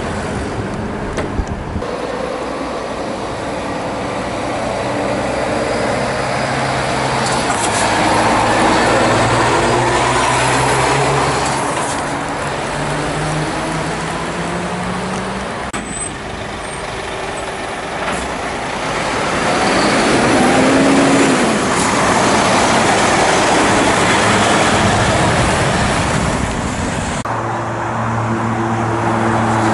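Heavy diesel trucks pulling away and driving past, one after another, their engines climbing in pitch as they accelerate over tyre and road noise.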